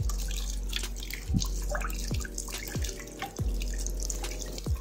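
Water running from a plastic tap onto soapy hands being rubbed together, with wet splashing and dripping. Short low falling sweeps recur about once a second.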